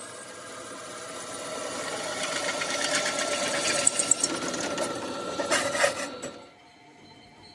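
Drill press bit cutting a bolt hole through the steel centre disc of a tractor wheel rim. The sound grows louder over the first few seconds, with a few sharp clicks, then stops suddenly about six seconds in.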